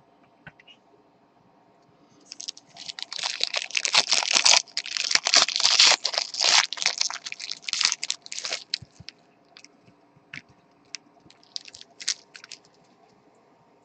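Plastic trading-card packaging crinkling and crackling as it is handled, in dense bursts for about six seconds, followed by a few scattered sharp clicks and taps.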